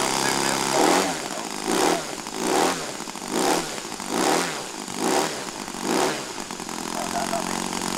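Laser 160 inline-twin four-stroke model aircraft engine idling steadily, then revved in about seven quick throttle blips, each rising and falling again. It settles back to a steady idle near the end.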